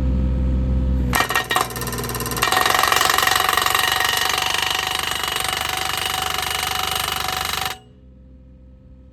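Mini excavator's engine running, then about a second in a post driver starts hammering rapidly on a steel T-post through its sleeve; the hammering stops abruptly near the end while the engine keeps running more quietly.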